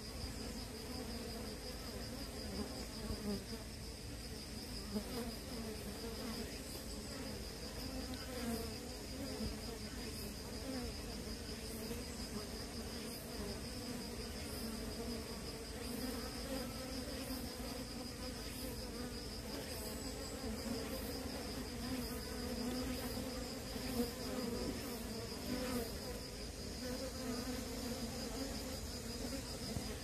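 Korean native honeybees (Asian honeybees) buzzing around their hive entrance as they come and go: a continuous, wavering hum. A steady high-pitched tone runs behind it.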